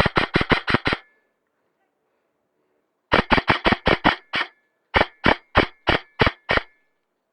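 Falkor Blitz airsoft electric rifle firing strings of rapid, sharp shots at about seven a second: a burst ending about a second in, then two more strings from about three seconds on, with short pauses between them.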